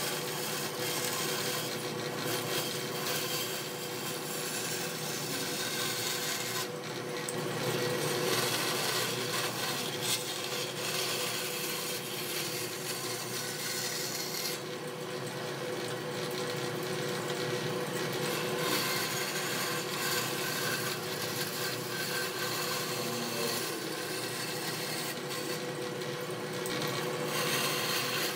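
Band saw cutting through slices of tree stump wood: the blade rasps steadily through the wood over the machine's running hum, and the high cutting noise thins out for a moment a few times.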